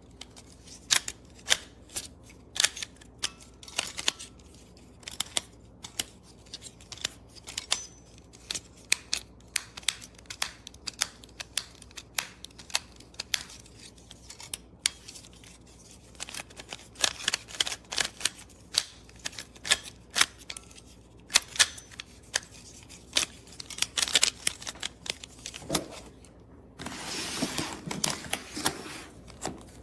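Plastic speed cube being turned by hand: rapid, irregular clicks and snaps of the layers turning, with a short rustle near the end.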